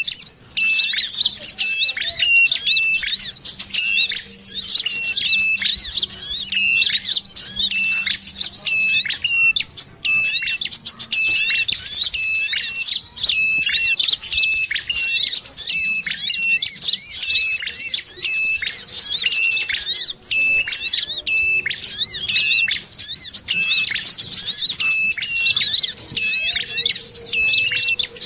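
Bird-lure recording of small songbirds: a dense, unbroken high chattering (the 'sogon' chatter) layered with a short, clear call that repeats a little faster than once a second, mixed from red-headed prenjak and brown-throated sunbird calls to draw wild birds in.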